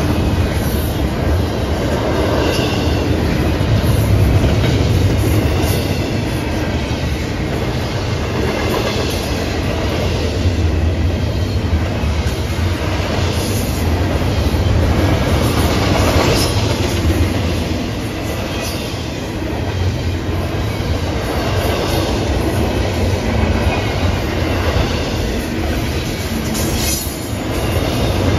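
Double-stack intermodal freight train's loaded well cars rolling past close by: a steady, loud rumble of steel wheels on the rails, with clattering over the rail joints and occasional faint wheel squeal.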